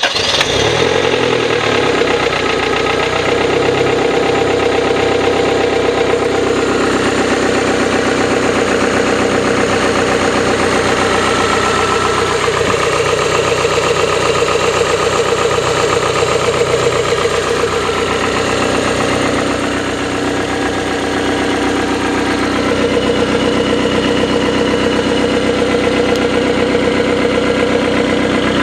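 Toyota 5A-FE four-cylinder petrol engine idling just after a start, with a knock running through the idle. The idle dips slightly about twenty seconds in and picks back up.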